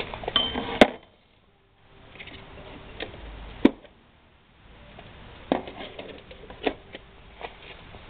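Hand tools clicking and knocking against metal while an engine is fitted to a moped frame: a handful of sharp separate clicks, the loudest about a second in.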